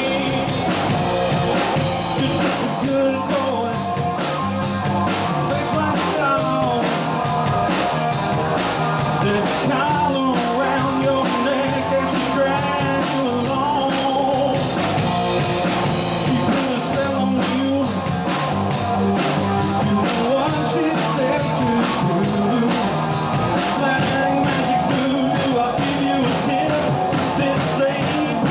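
Live rock band playing: drum kit, electric guitar and a singer, with steady drum beats throughout.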